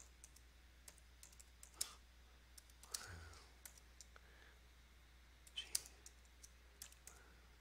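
Computer keyboard keystrokes, faint irregular clicks as a search phrase is typed, over a steady low hum.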